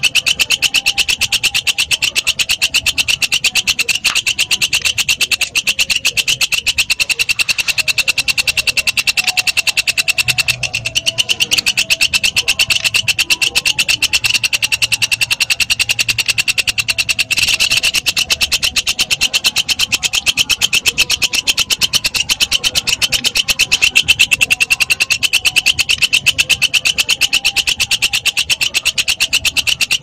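Walang kecek bush cricket (katydid) calling: a fast, even train of rasping pulses at a high, ringing pitch, unbroken throughout.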